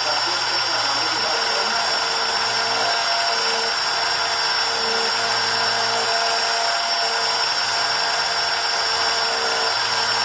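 CNC engraving machine cutting copper: a steady high-pitched whine over a hiss, with lower tones that start and stop every second or so as the machine moves.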